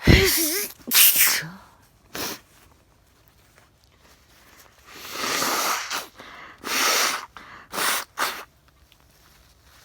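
A woman sneezing repeatedly: a loud voiced sneeze right at the start, another strong one about a second later, then, after a pause, a string of longer breathy blasts and two short sharp sneezes.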